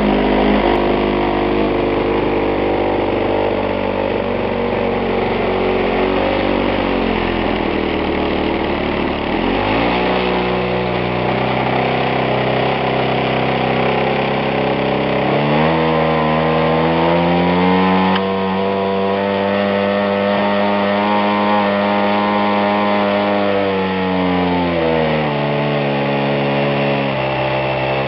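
ZDZ 40 single-cylinder two-stroke petrol engine of a model aerobatic plane running on the ground with its propeller turning. It starts at a low throttle setting, speeds up about ten seconds in and again about half-way, holds a higher steady speed for several seconds, then throttles back about three seconds before the end.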